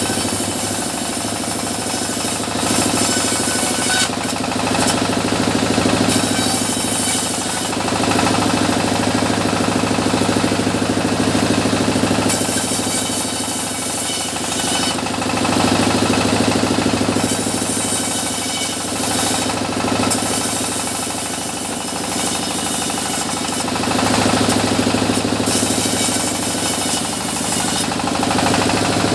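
Sawmill machinery running with a steady engine-like hum, while a saw cuts through mahogany in several stretches of a second or more each, bright hissing noise rising over the hum each time.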